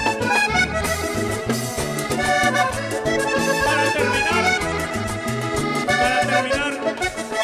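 Live vallenato band playing an instrumental passage led by the accordion, over electric bass, congas and percussion in a steady danceable rhythm.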